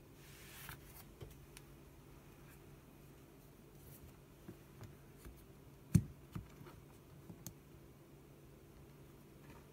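Handling noises from an iPhone being picked up and handled: a scatter of small clicks and taps, with one sharp knock about six seconds in as it is set back down.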